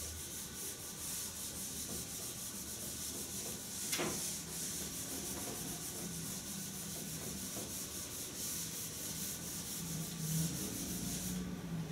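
Whiteboard eraser scrubbing a whiteboard in quick back-and-forth strokes, a dry rubbing swish. There is one sharp knock about four seconds in, and the rubbing stops near the end.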